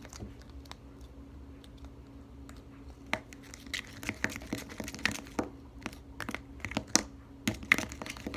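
Slime of glue and laundry detergent being stirred in a container, with irregular sticky crackles and clicks starting about three seconds in over a faint steady hum.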